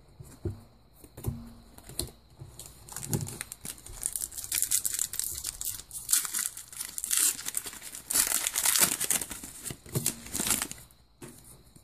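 Foil Pokémon booster pack wrapper being crinkled and torn open by hand: a long run of crackling rips that is loudest near the end and then stops. Before it come a few light clicks.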